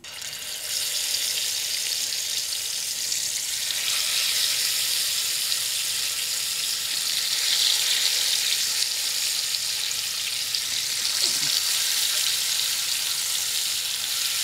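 Masala-coated karimeen (pearl spot fish) sizzling steadily as it fries in hot oil; the hiss starts abruptly and stays even.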